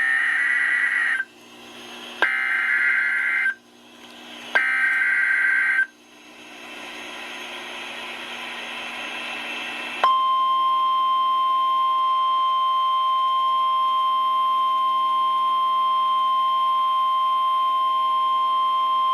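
NOAA Weather Radio alert opening. Three warbling buzzes of SAME digital header data, each about a second long and a second apart, are followed by a few seconds of rising radio hiss. About ten seconds in, the single steady warning alarm tone starts and holds, signalling that a new warning is about to be read.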